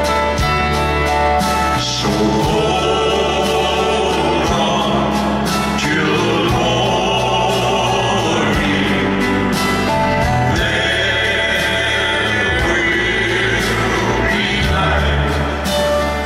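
Male vocal quartet singing a country-gospel song in close harmony, backed by a live band with acoustic guitar and drums, amplified through a concert PA.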